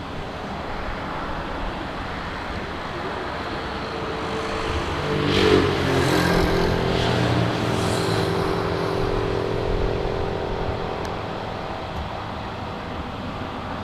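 Jet airliner passing close by, its engine noise building to a peak about five seconds in, then dropping in pitch and slowly fading as it moves away.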